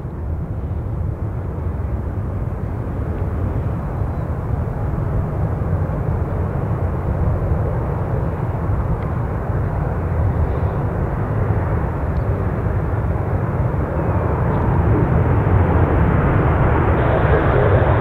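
Jet engines of a Boeing 737 airliner landing and rolling out on the runway, heard from afar as a steady rushing noise that grows louder toward the end.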